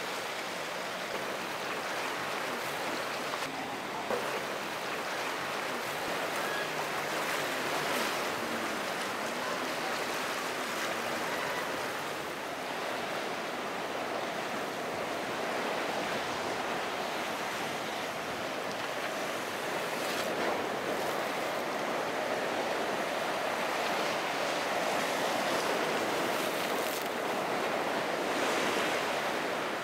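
Ocean surf: a steady rush of waves breaking and washing, with wind noise on the microphone.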